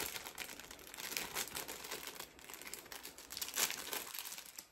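Crinkly packaging being crumpled and rustled by hand as a small boxed item is unwrapped, in uneven crackles with a softer stretch about two seconds in.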